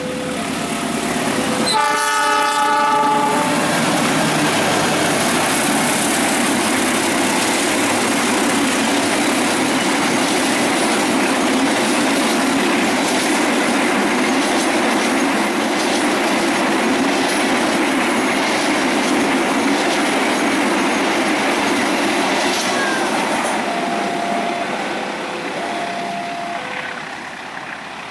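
Diesel-electric locomotive sounds its horn, one chord-like blast about two seconds in, then its train of passenger carriages runs past close by for about twenty seconds with a loud rumble and clickety-clack of wheels over rail joints, fading near the end. A level-crossing warning signal sounds alternating two-pitch tones at the start and again near the end.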